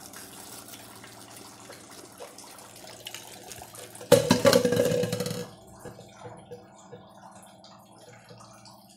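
Whole cloves rattling and scraping in a plastic spice jar as they are shaken out, loudest for about a second and a half a little after four seconds in. A steady low hum and soft handling noises of jars on a stone counter sound the rest of the time.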